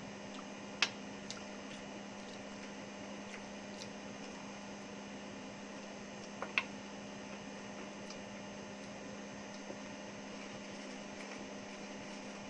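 Steady low electrical hum with a faint hiss, broken by two short clicks, about a second in and about six and a half seconds in.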